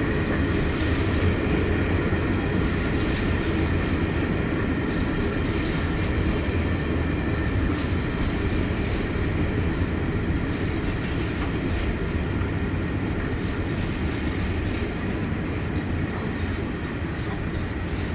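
Empty coal train rolling past: a steady rumble of wagons with scattered clicks of wheels over the rail, easing off slightly toward the end.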